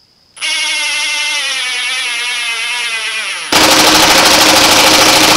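Ridgid Octane 18-volt brushless impact driver at speed one, mode one, driving a screw into wood. The motor starts with a whine that sinks slowly in pitch, then about three seconds in the impact mechanism engages with a much louder, fast hammering as the screw meets resistance.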